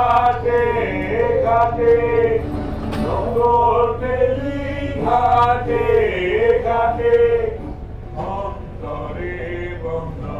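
Male voices singing a song in long held notes that waver in pitch, over a low steady hum.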